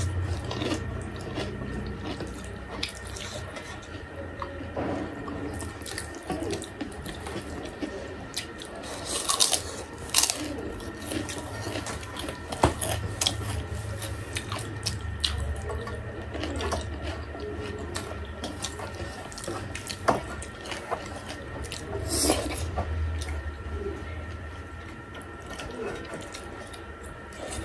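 Close-up wet eating sounds: chewing and lip smacking, with fingers mixing rice in steel plates and scattered small clicks and taps.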